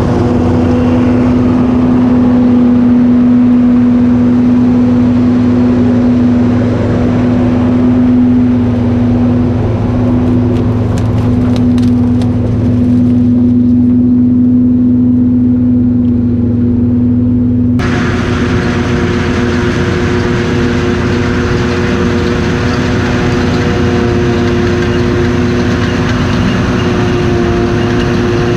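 Farm harvesting machinery engine running steadily, a constant even hum; the sound changes abruptly about two-thirds of the way through, with more hiss and clatter on top.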